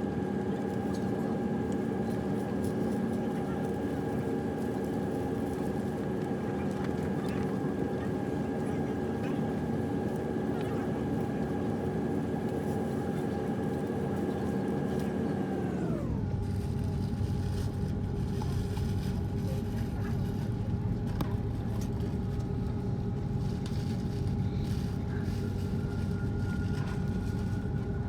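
Airbus A330 jet engines heard from the cabin while taxiing, a steady hum with several whining tones. About halfway through the pitch drops sharply and settles lower as the engines are throttled back, and near the end it begins to rise again as thrust is added.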